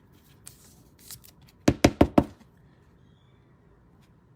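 Trading cards being handled on a table: a couple of soft rustles, then four quick, sharp taps about a second and a half in.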